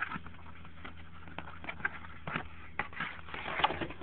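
Cardboard box being handled and slid out of its outer packaging: scattered light knocks, taps and rustles, the sharpest about three and a half seconds in.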